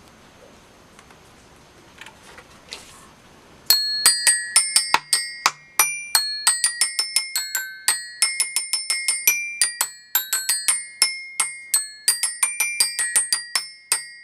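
Seven-note Peppa Pig toy xylophone struck with a mallet: a quick string of bright, ringing notes, several a second, begins about four seconds in. Before that there is only faint handling noise.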